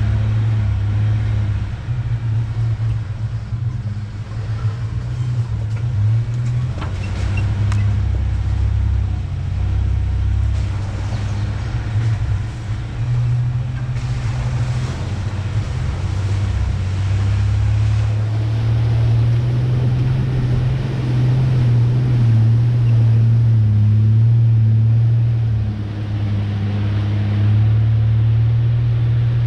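1993 Ford Ranger pickup's engine running under light load at low speed, a steady low drone that rises and falls a little with the throttle, with a few faint knocks.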